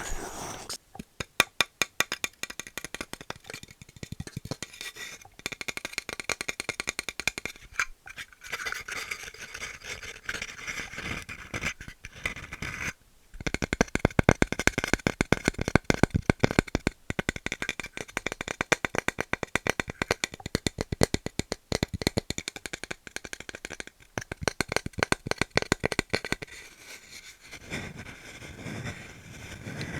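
Wood being tapped and scratched in fast runs of dry clicks, with short pauses between runs. The loudest run begins about halfway through.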